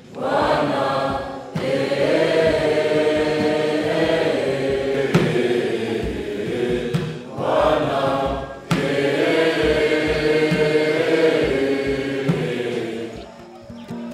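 A group of school students singing a chant together in two long held phrases, each opening with a rising line, with a short break about halfway and a fade near the end.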